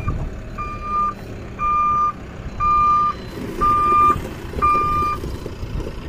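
Reversing alarm of a Mahindra backhoe loader, beeping about once a second in even half-second beeps, five times, over the low running of its diesel engine.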